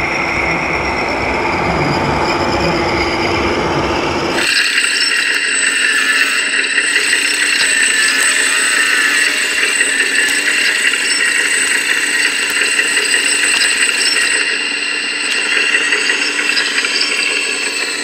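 A low rumble for about the first four seconds, then from about four seconds in a steady high-pitched whine with several tones held together: a scale RC hydraulic excavator's pump running as it digs.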